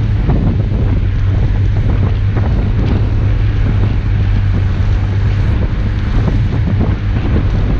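Lada Niva's four-cylinder engine running with a steady low drone as the car drives along a snowy track, mixed with tyre noise and wind rumbling on the camera's microphone.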